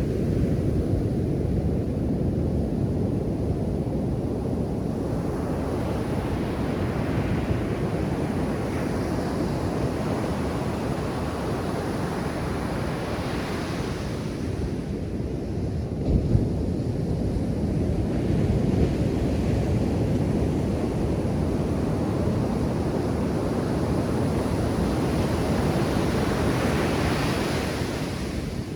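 Ocean surf on a beach: a steady low rumble of waves, with two washes of hiss that swell and fade, one peaking about halfway through and one near the end.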